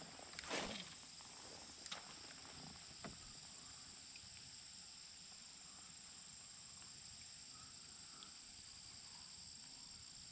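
Steady, high-pitched insect chorus of a late-summer evening by a creek, quiet and unbroken. A short swish about half a second in and a few light clicks sit over it.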